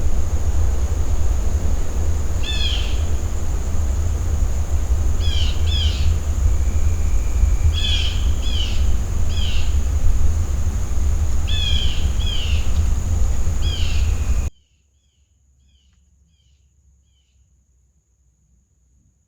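Wind rumbling on the microphone over a steady high hiss, while a bird calls in short clusters of two or three quick chirps every few seconds. About fourteen seconds in, the wind and hiss cut off abruptly, leaving only faint chirps.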